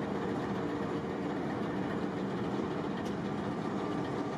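Diesel locomotive engines of a long passenger train running with a steady, even hum as the train moves slowly forward.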